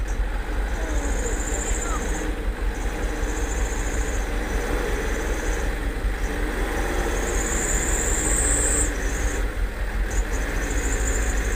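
Loaded light truck's engine running at low speed as the truck crawls through deep mud, a steady low drone. A high, thin buzz sounds over it, cutting in and out several times.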